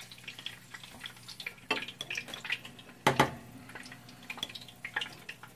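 A metal spoon tapping and scraping against a plate and a glass bowl as scrambled egg is spread on an egg roll wrapper: scattered light clicks, the loudest about three seconds in.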